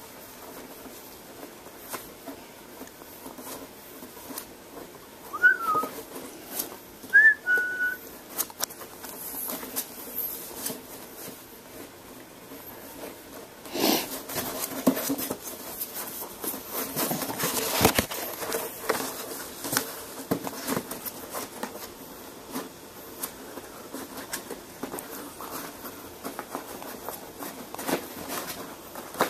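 Boston Terrier puppy gnawing and pawing at a cardboard tube: scratchy chewing, scraping and rustling of the cardboard, busiest in the middle. Two brief high squeaky notes about five and seven seconds in stand out above it.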